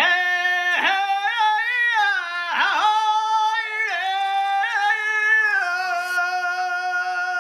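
Solo voice singing an unaccompanied traditional Assamese melody: long held high notes with quivering ornaments and sudden dips in pitch.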